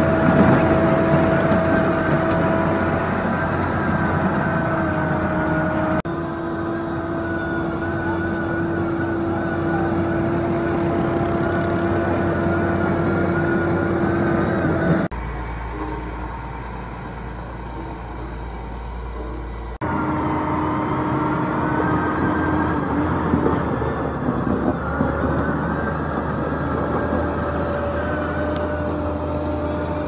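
Diesel engines of road-building machines running steadily: a PP12G-IX motor grader, then a single-drum road roller. The sound changes abruptly at edits about 6, 15 and 20 seconds in, with a quieter stretch carrying a deep low rumble between about 15 and 20 seconds.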